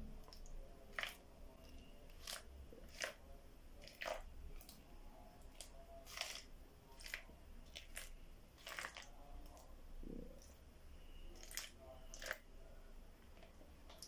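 Water dribbled from a plastic measuring cup onto dry couscous in a plastic bowl: faint, irregular small splashes and crackles.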